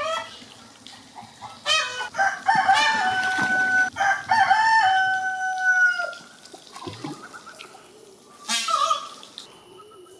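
Peacock calling loudly several times: short calls at the start and about two seconds in, then two long drawn-out calls over the next few seconds, and one more short call near the end.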